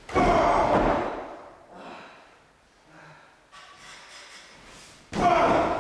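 Two heavy slams of wrestlers' bodies onto the ring mat, one right at the start and one about five seconds in, each dying away over about a second.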